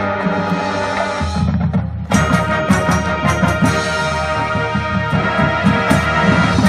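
Marching band playing its field show: brass holding sustained chords over low drums, a brief drop about two seconds in, then the full band re-entering louder with sharp percussion hits.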